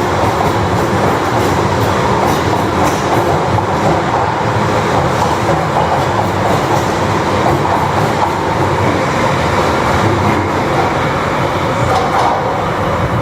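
London Underground 1973 Stock Piccadilly line train moving through the station: steady wheel-on-rail noise with quick, faint clicks from the wheels.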